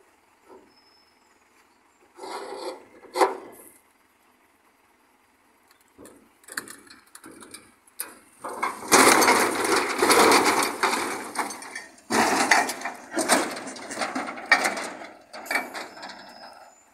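An overturned manure spreader being rolled back upright. A few short scrapes and knocks about two seconds in, then from about halfway a long stretch of loud clattering and scraping from the steel body and its wooden-planked floor as it tips over and comes down.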